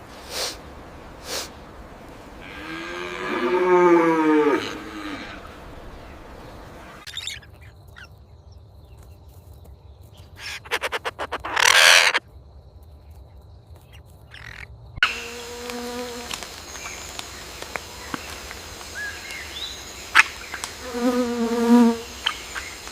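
Farm animal calls in several separate clips. The loudest is a long call that rises and falls about three to five seconds in, with shorter calls later, and a loud rustling burst near the twelfth second.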